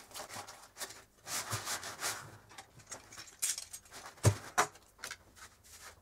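Rustling and scraping of a waterproof fabric dry bag and its card tags being handled and slid across a tabletop, with two light knocks about four seconds in.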